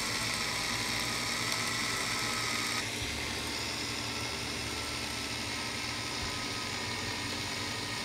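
DEKO cordless electric caulking gun running steadily, its small geared motor driving the plunger to push silicone sealant out of the cartridge. It has a steady whine, with a small shift in pitch about three seconds in.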